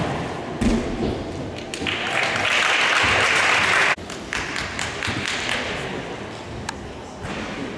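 A thud just under a second in, then audience applause from about two seconds in that cuts off abruptly about four seconds in, after which only quieter hall noise with a single click remains.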